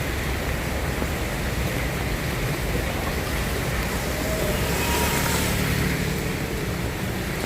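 Steady soft rain falling, an even hiss. Around the middle it swells a little, with a faint thin tone and a low rumble passing through.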